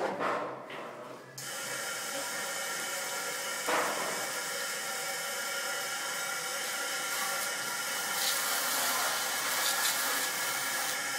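Water jet from a hose spraying and rinsing the outside of a stainless-steel grape press: a steady hiss of spray that sets in about a second and a half in. There is a single knock about four seconds in.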